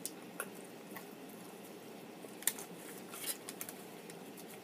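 Close-up eating sounds of a person chewing food with the mouth closed: scattered, irregular wet clicks and smacks, the sharpest about two and a half seconds in, over a steady low room hum.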